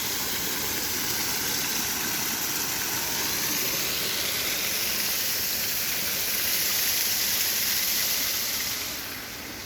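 Waterfall rushing as a steady hiss of falling water, easing off a little near the end.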